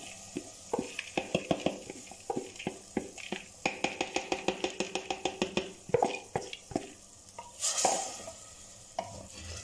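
Soaked dal being tipped from a plastic bowl into a clay pot: a quick run of sharp clicks and taps with a short ringing after each, about five a second at the fastest, as the bowl is tapped and scraped out against the pot. Near the end a wooden spoon swishes through the wet lentils, stirring them in.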